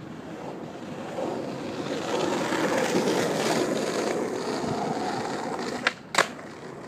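Skateboard with hard wheels and loose trucks rolling over rough asphalt, the rolling noise swelling as it passes close by. Near the end, two sharp cracks about a third of a second apart: the tail popping for a small ollie, then the louder landing.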